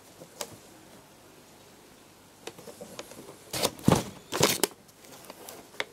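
Cardboard firework boxes handled by hand: light taps and rustles, with two louder bursts of knocking and scraping about three and a half and four and a half seconds in.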